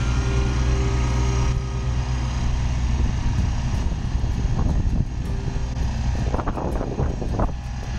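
Kubota BX25 subcompact tractor's three-cylinder diesel engine running steadily as the tractor backs and turns. In the second half, a whine rises and falls several times over the engine.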